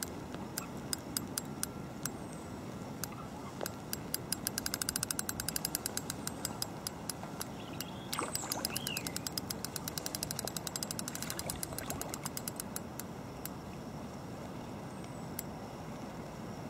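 Shimano DL2500FA Baitrunner spinning reel clicking in long runs while a small carp is played in, fastest about four to six seconds in at around ten clicks a second, then slower.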